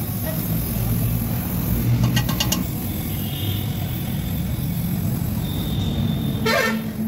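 Gas brazing torch flame running with a steady low roar while a diamond segment is brazed onto a steel core-drill bit. A quick run of clicks comes about two seconds in, and a short scrape near the end.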